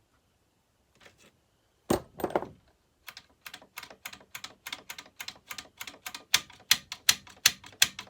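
A clatter of metal parts about two seconds in, then a steady run of sharp clicks, about three or four a second, growing louder, from hand work on a Homelite XL-12 chainsaw's throttle linkage.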